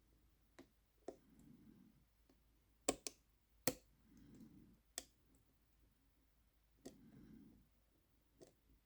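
Irregular sharp metallic clicks of a tension wrench and wire pick working a small six-lever brass lock, as the levers are lifted and drop back into place. The loudest clicks come near the middle.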